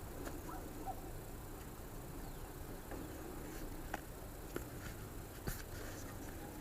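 A few faint, light clicks from the seatbelt retractor parts being handled, over a steady low background hiss.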